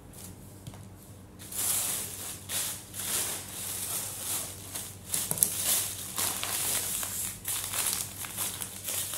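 Thin plastic carrier bag rustling and crinkling as hands rummage in it and draw out a small plastic packet. The crackling starts about a second and a half in and goes on irregularly.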